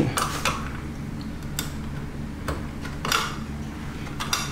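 The electrical junction box cover on an LG dishwasher being gripped and worked loose by hand, giving a handful of scattered sharp clicks and rattles, the loudest about three seconds in, over a low steady hum.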